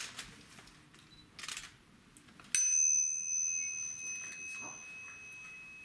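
A small metal bell struck once about two and a half seconds in, ringing on with a clear high tone that slowly fades.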